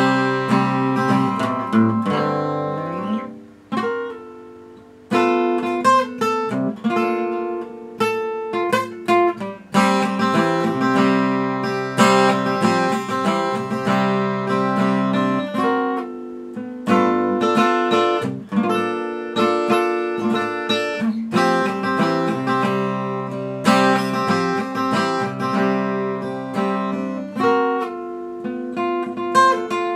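Guitar music: plucked notes and strummed chords, dropping away briefly about four seconds in before the playing resumes.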